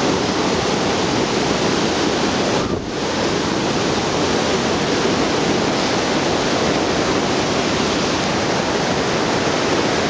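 Waterfall pouring steadily: a loud, even rush of falling water. It dips briefly a little under three seconds in.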